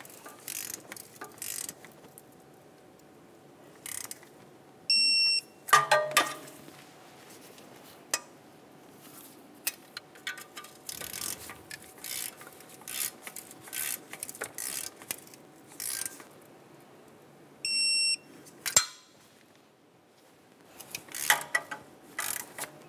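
Torque wrench ratcheting exhaust manifold nuts down in short clicking strokes, with an electronic beep about five seconds in and another later on, each signalling that a nut has reached the 27 ft-lb setting.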